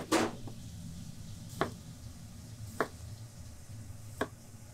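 A knife slicing through a white radish into thick rounds, each cut ending in a knock on a plastic cutting board: four cuts, roughly a second and a half apart, the first the loudest. A steady low hum runs underneath.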